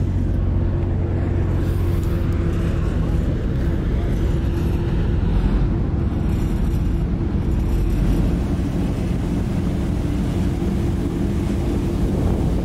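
Steady low drone of the Eastern Dream ferry's engines, heard out on deck over a wash of sea and wind noise.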